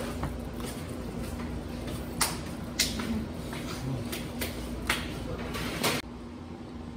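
Wooden spatula working thick choux paste in a stainless steel bowl, with several sharp knocks of the spatula against the bowl, over a steady low hum.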